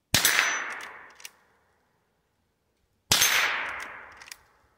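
Two shots from a Henry lever-action .22 rimfire youth rifle, about three seconds apart. Each crack is sharp and trails off over about a second and a half, and a faint click follows about a second after each.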